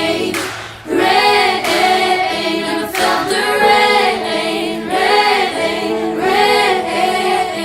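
Young voices singing together in a run of wordless, sliding phrases. They break off briefly and come back in about a second in.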